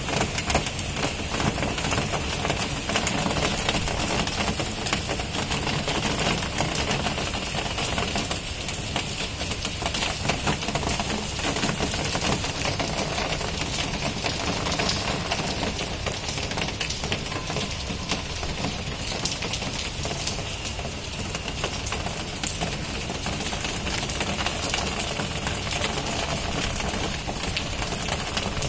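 Heavy monsoon rain pouring steadily, a dense patter of countless fine drop ticks.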